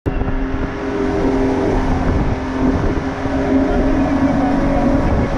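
Boat's engine running steadily under way, with wind and the rush of its wake through choppy sea.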